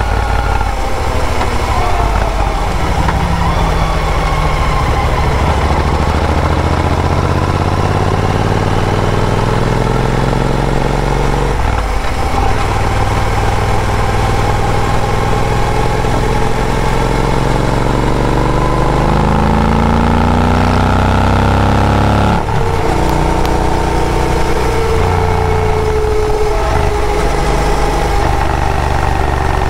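Royal Enfield Interceptor 650's parallel-twin engine through AEW TE101 aftermarket exhausts, riding under acceleration: the revs climb, drop sharply at an upshift about twelve seconds in, climb again and drop at a second upshift about twenty-two seconds in, then hold steadier.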